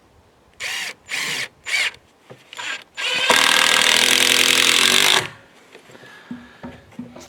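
Power drill run in three short bursts, then held for a steady run of about two seconds. A few faint knocks follow near the end.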